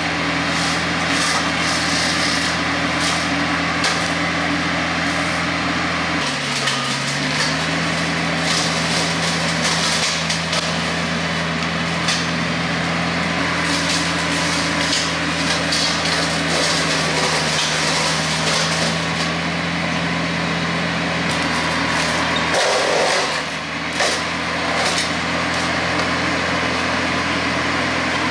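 Tractor diesel engine running under load to drive a Hardee Brush Tiger hydraulic rotary cutter, which chops through cedar brush and limbs with constant crackling and snapping of wood. The engine's pitch sags briefly about six seconds in and again near the end, then recovers.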